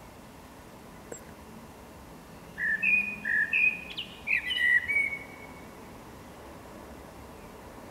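Male common blackbird singing one short phrase of fluty, whistled notes, some of them sliding sharply in pitch. It starts about two and a half seconds in and lasts under three seconds.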